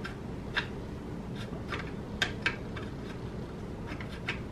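A few light, scattered metallic clicks and taps as the parts of a Draco NAK-9 9mm AK-style pistol are handled and fitted during reassembly.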